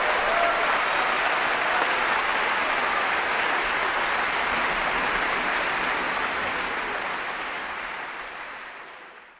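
Large audience applauding in a concert hall: dense, steady clapping that fades out over the last couple of seconds.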